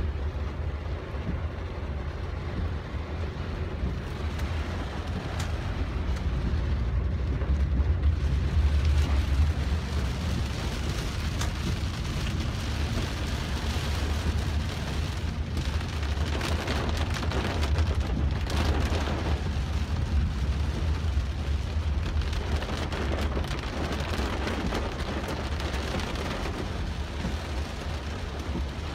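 Heavy downpour on a car's roof and windshield, heard from inside the cabin as a steady hiss, over a constant low rumble of the car.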